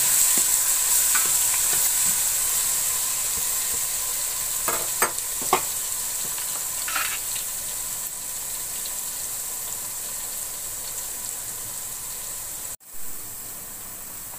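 Garlic paste frying in hot cooking oil in a steel pot: a steady sizzling hiss that slowly fades, with a few clicks of a metal spoon stirring against the pot about five and seven seconds in. The sound cuts out for an instant near the end.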